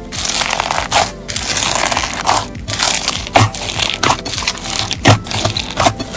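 Crunchy slime being squeezed and pressed by hand, a dense crackling crunch with sharp pops about once a second.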